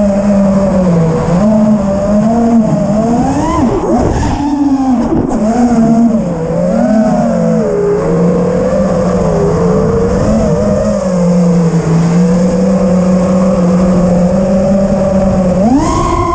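FPV freestyle quadcopter's brushless motors whining, the pitch swooping up and down with throttle punches. The pitch holds fairly steady through the middle and jumps sharply higher near the end.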